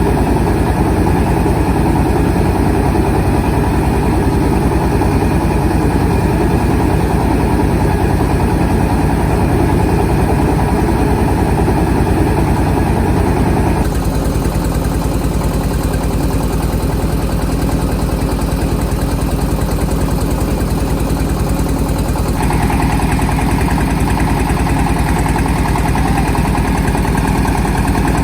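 Engine of a mobile rice-mill vehicle running steadily with a rapid, even firing beat. The sound shifts abruptly about halfway through and again near the end.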